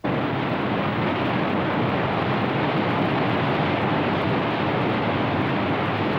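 Steady rush of whitewater in a river rapid, cutting in abruptly and holding an even level throughout.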